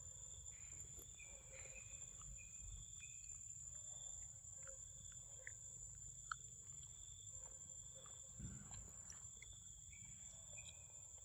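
Faint forest ambience with a steady high insect drone, and quiet chewing and small clicks as a macaque eats peanuts close by, one sharper click about six seconds in.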